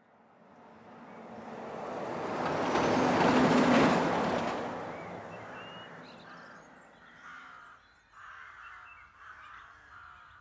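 A car passing along the road, its noise swelling to a peak about three to four seconds in and fading away. As it fades, rooks in the rookery start cawing, several harsh calls over the last few seconds.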